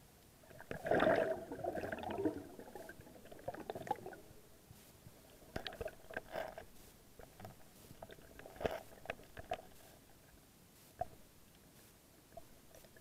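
Muffled underwater sound through an action-camera housing: water sloshing and bubbling with irregular knocks and scrapes as the housing moves among rocks during a struggle with an octopus. The loudest burst comes about a second in, with sharper knocks around six and nine seconds.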